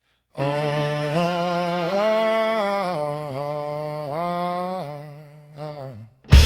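Wordless male vocal humming a slow, gliding melody on its own, unaccompanied. A full rock band crashes in loudly near the end.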